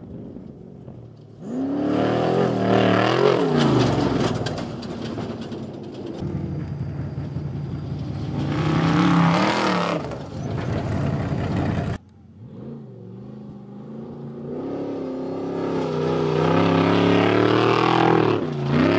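Trophy trucks' V8 engines revving as they race past one after another, the engine pitch sweeping up and down with each pass. One truck's sound cuts off abruptly about two-thirds of the way in, and another builds up loud toward the end.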